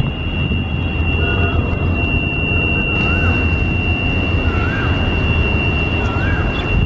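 Low, steady rumble of a Hyundai Rotem 3000-series diesel-electric locomotive hauling a container freight train as it approaches, with a thin, steady high-pitched whine over it. From about three seconds in, a short rising-and-falling whistle repeats roughly every second and a half.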